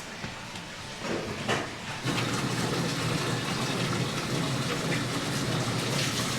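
A couple of light knocks, then water running steadily from a tap, starting about two seconds in.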